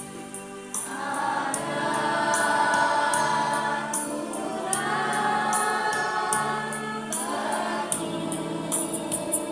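Choir rehearsing, singing long held chords that swell about a second in, over a steady low note, with a light high tick keeping a beat about twice a second.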